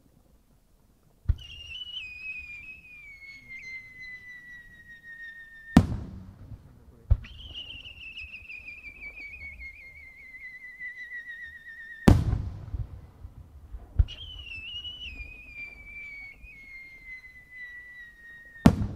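Three aerial firework shells launched one after another. Each leaves the mortar with a short thump, climbs with a whistle that slowly slides down in pitch for four to five seconds, and bursts with a loud sharp bang.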